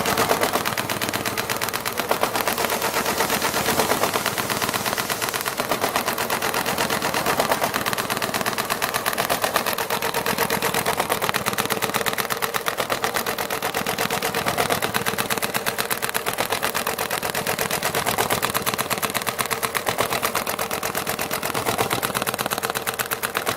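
Richpeace computer-controlled (CNC) industrial sewing machine stitching at speed: a steady, rapid mechanical clatter of needle strokes.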